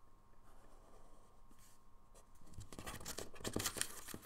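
Fine liner pen drawing lines on paper: faint at first, then a quick run of short pen strokes in the last second and a half.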